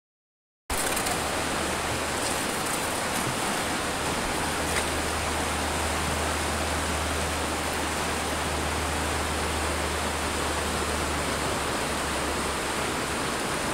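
Steady rushing of a shallow river, an even hiss that starts abruptly after a moment of silence and holds unchanged, with a low rumble underneath.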